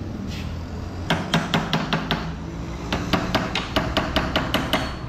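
Quick, sharp metallic taps from a metal hand tool worked against the motorcycle's steel rear frame, about six a second, in two runs with a short pause between them.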